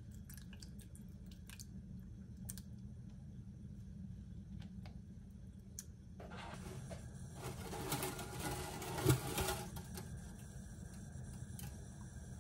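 A clear plastic bag of dried noodles crinkling as it is handled, starting about six seconds in and loudest just after nine seconds. Before that there are a few light clicks and taps. A low steady hum runs underneath.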